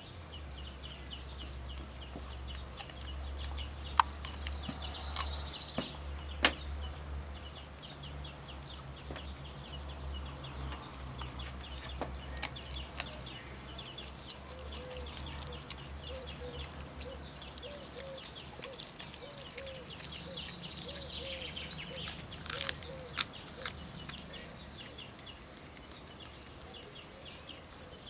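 Australian kelpie chewing a lamb sparerib, with a few sharp crunches of bone. Around the middle there is a run of short repeated calls, about two a second, and a steady low hum in the first half.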